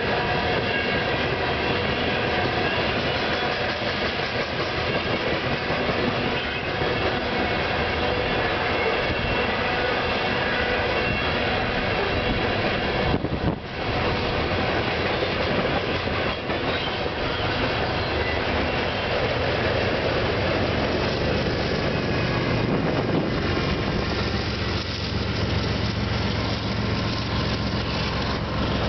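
Freight cars of a BNSF train rolling past: a steady rumble and clatter of steel wheels on rail. A low steady drone joins in the last few seconds.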